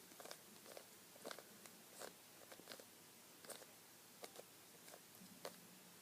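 Faint, irregular plastic clicks of a Rubik's Cube's layers being turned by hand, roughly two a second.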